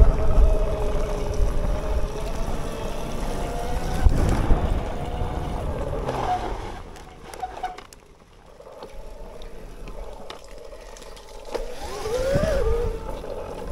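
Bafang BBSHD mid-drive electric motor whining under power over a low rumble. The whine fades out about seven seconds in, leaving a few faint clicks, then rises and falls again briefly near the end.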